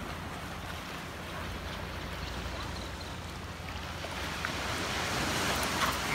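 Small waves washing onto a sandy beach, with wind on the microphone. The noise grows louder over the last two seconds.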